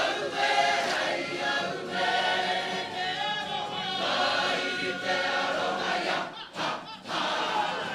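Māori kapa haka group of women and men singing a waiata together in unison, with a short break for breath about six and a half seconds in.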